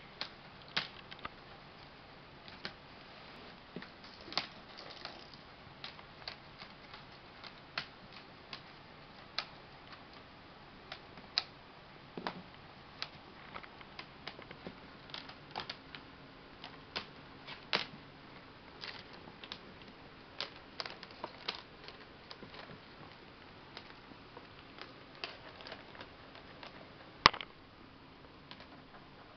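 Kittens playing on a hardwood floor: irregular light clicks and taps of paws, claws and a plastic strip against the wood, with one sharper knock near the end.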